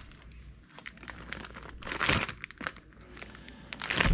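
Clear plastic zip-top bag crinkling as it is handled, with louder bursts about two seconds in and near the end.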